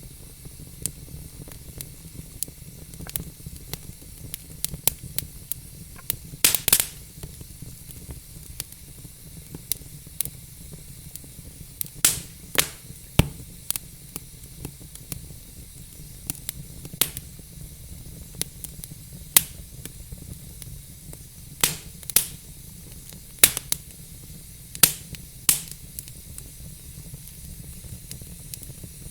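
Wood fire crackling in a fireplace: a steady low rumble and hiss of burning logs with frequent sharp pops and snaps at irregular intervals, a few of them loud.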